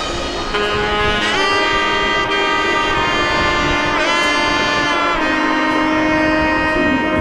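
Background music with long held chords and a couple of notes that swoop in pitch.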